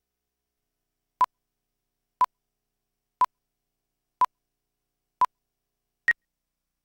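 Countdown leader beeps: five short beeps of the same steady tone, one a second, starting about a second in, then a shorter, higher beep near the end, counting down to the start of the spot.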